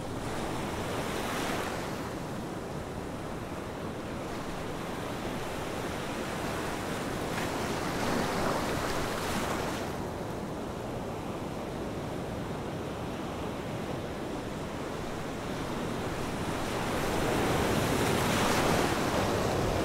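Choppy sea water washing and rushing, with wind buffeting the microphone; the steady rush swells louder three times.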